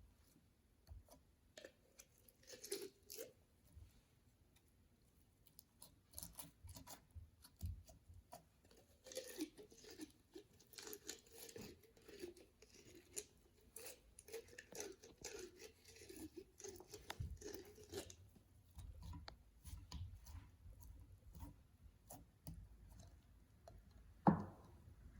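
Slime being worked by hand: quiet sticky squishing and stretching with many small crackling clicks and pops, and one sharper pop near the end.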